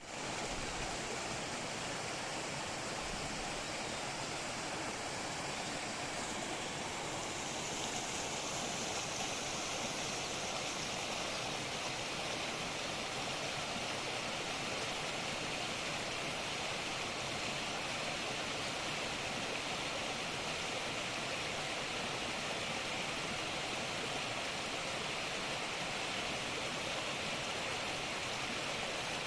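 Mountain valley stream: water rushing over rocks with a steady, even hiss.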